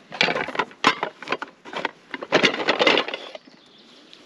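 Canvas tote bag packed with cookware and tins set down on a blanket: fabric rustling with irregular knocks and clinks of the metal pots and cans inside, the sharpest clink about a second in, all stopping after about three seconds.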